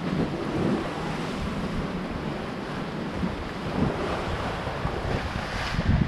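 Wind buffeting the microphone over the rushing wash of surf on the shore: an uneven, gusting noise with a heavy low rumble and no distinct single event.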